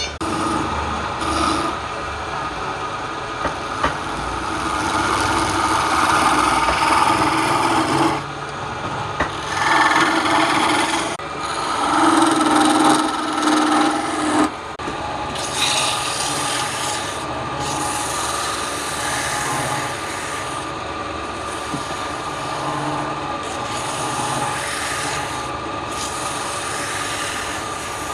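Wood being worked on a turning lathe: a hand tool rubs and rasps against the spinning wood in a continuous run, changing in pitch and loudness every few seconds as the cut shifts. A steady tone underlies it.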